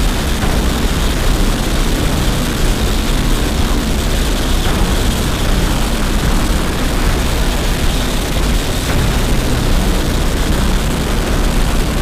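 UH-72 Lakota twin-turbine helicopter running on the ground with its main rotor turning: a steady rush of rotor and turbine noise with a faint high whine.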